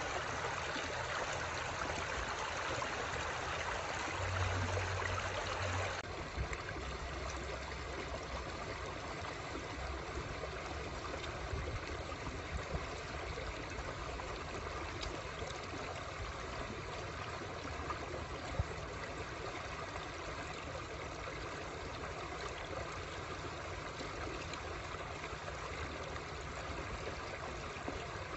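Shallow rocky stream flowing: a steady rush and trickle of water over stones. The rush drops a little and turns less bright about six seconds in.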